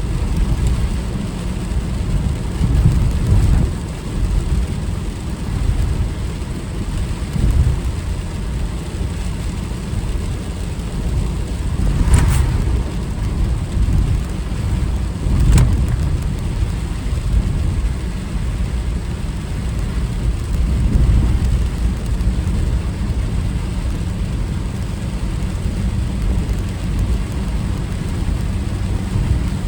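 Car driving in typhoon rain: steady low road and rain noise, with two sharp knocks about twelve and fifteen seconds in.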